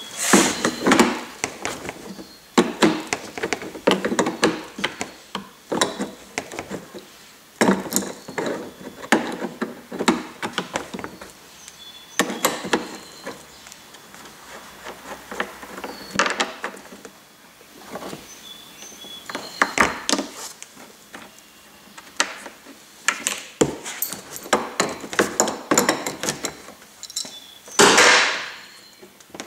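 Knocks, clicks and clatter of hands working at the transmission cooler fitting on an old radiator's plastic lower tank, taking it apart. The noises come in clusters with short pauses between them, and the loudest is a longer clatter near the end.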